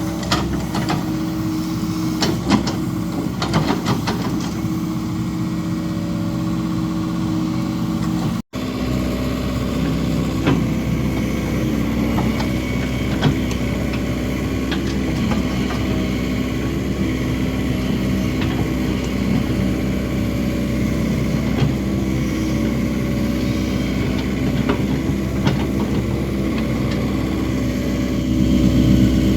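Excavator engine running steadily, with sharp knocks and clanks of the digging gear, several in the first four seconds and a few scattered later.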